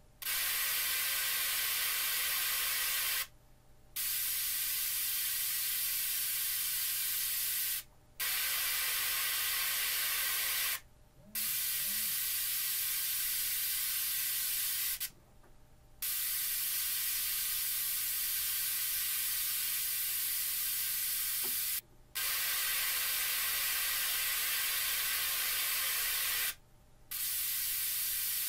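Visaton SC 10 N tweeter playing a steady hiss-like noise test signal, filtered by a series capacitor acting as a first-order high-pass crossover, so there is little sound below about 1 kHz. The hiss cuts out briefly about six times, each time the positive wire is broken to change the capacitor value.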